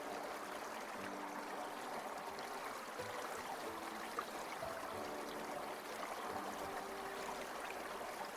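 Water stream running and trickling steadily, with soft sustained music notes faintly underneath.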